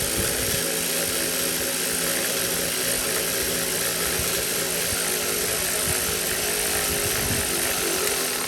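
A loud, steady machine whir with a low hum under it, which cuts off abruptly at the very end.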